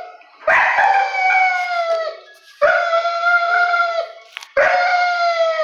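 A dog howling in three long calls, each about a second and a half, sliding slightly down in pitch.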